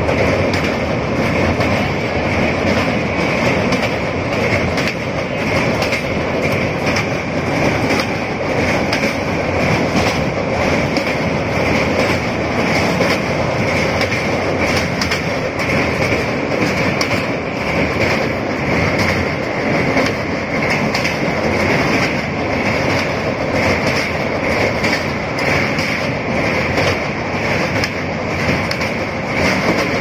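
Passenger train running across a steel truss bridge, heard from on board: a steady rumble of wheels on rails with a regular clickety-clack.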